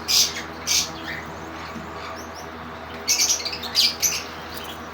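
Java sparrows chirping: two sharp high chirps near the start, then a quicker run of chirps from about three seconds in.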